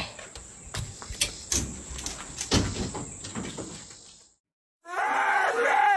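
A run of sharp knocks and clatters. After a short gap, a dog starts a loud, wavering, drawn-out cry about five seconds in.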